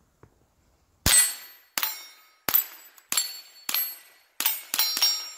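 Rossi RS22 semi-automatic .22 LR rifle fired about eight times in quick succession, starting about a second in, the last few shots coming fastest. Each crack is followed by a high metallic ringing ping from steel plate targets being hit.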